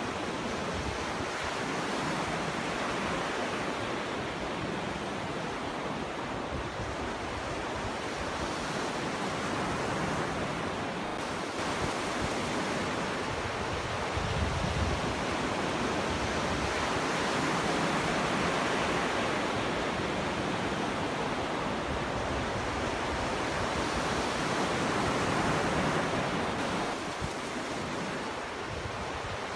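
Ocean waves breaking and washing up a beach in a steady rush of surf that swells and eases slowly, with a few low thuds about halfway through.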